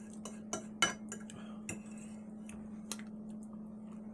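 Eating utensils clinking and tapping against a plate, a scattering of short sharp clicks with the loudest a little under a second in. A steady low hum runs underneath.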